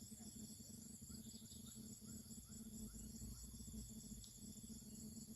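Faint, steady chorus of insects such as crickets, a continuous high shrilling.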